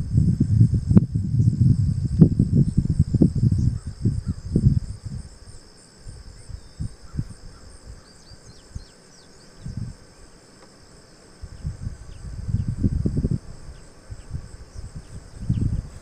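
Steady high-pitched chorus of insects in open pasture, with gusts of wind buffeting the microphone, heavy in the first few seconds, dying away, then picking up again near the end.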